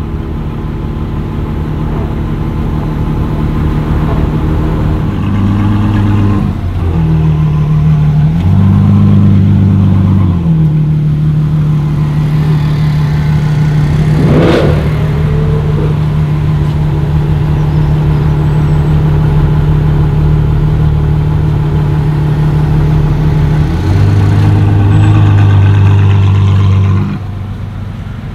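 Novitec-tuned Ferrari F12 N-Largo S's 6.3-litre V12 running at low speed. Its pitch holds steady and steps up and down a few times. About halfway through, a short sharp sound with a quick rise and fall in pitch cuts across it.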